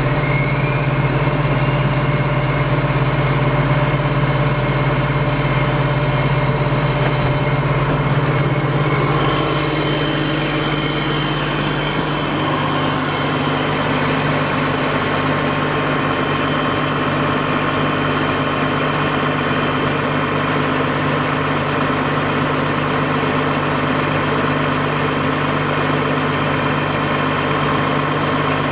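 2004 John Deere 710G loader backhoe's diesel engine idling steadily, just after being started. About twelve seconds in, the low drone shifts slightly and a faint higher tone comes in.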